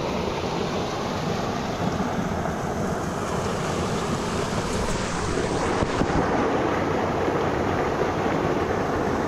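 Steady rush of a small brook's water spilling out of a culvert and tumbling over rocks into a pool.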